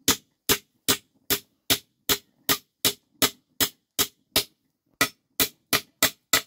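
A claw hammer driving a steel nail into a wooden frame joint: sharp, evenly spaced strikes about two and a half a second, with a brief pause about four and a half seconds in before the hammering resumes.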